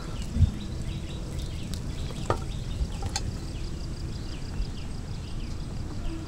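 Rural outdoor ambience: a steady low rumble of background noise with a regular run of short, high chirps from a small creature, about three a second, and a few faint clicks.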